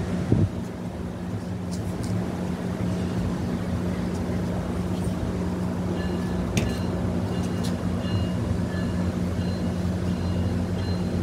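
Steady low hum of a MARC commuter train standing at the platform, its engines and car equipment idling. A short knock comes just after the start, and a faint high whine joins about halfway through.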